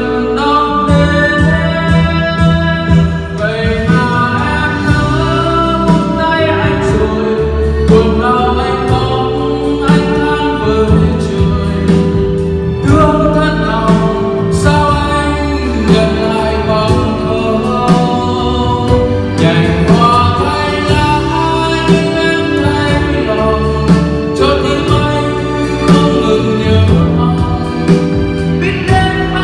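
A Vietnamese love ballad sung with instrumental backing, played through a karaoke sound system.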